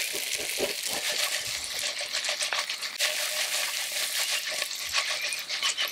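Small potatoes and garlic sizzling in butter in a cast-iron skillet over a campfire: a steady high hiss full of quick crackling pops.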